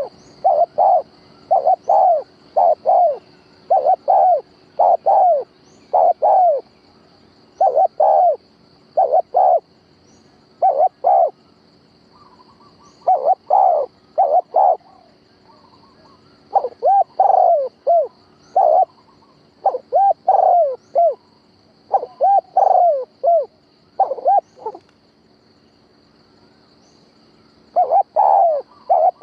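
Dove cooing in repeated phrases of short arched notes, a pause of a couple of seconds near the end before it resumes, as a decoy bird calling to lure wild birds in. A faint steady high hiss runs underneath.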